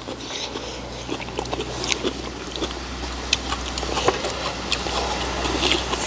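People eating: chewing and mouth sounds with scattered clicks of metal spoons and tongs against foil trays and the grill. Beneath them a low steady rumble and a hiss grow louder toward the end.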